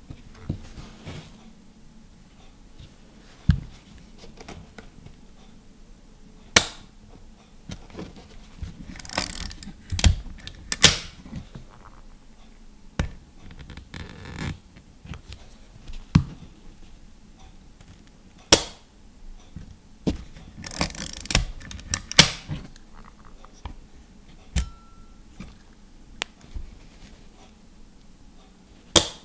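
Rollei 35 S leaf shutter firing again and again: about ten short, sharp clicks a few seconds apart. Between releases the camera is handled, with a longer rasping ratchet of the film-advance lever cocking the shutter twice.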